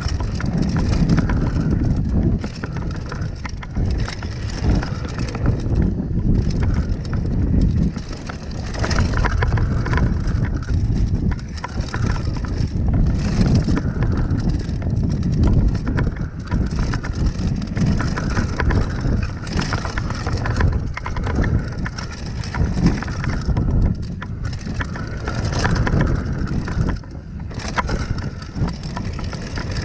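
Mountain bike riding fast down a dry dirt trail: tyres crunching over loose dirt and stones, with the bike rattling and knocking over bumps throughout. Wind rushes over the bike-mounted camera's microphone.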